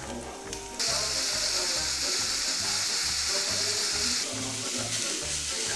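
Ground beef frying in hot oil with chopped onion in a pan: a loud sizzle that jumps up about a second in as the meat goes into the pan, easing a little later on.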